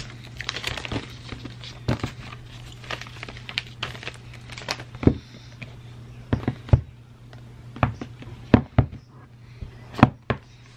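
Thin plastic shrink-wrap crinkling as it is peeled off a phone box, then a series of sharp taps and knocks as the cardboard box is handled and its lid lifted off, over a low steady hum.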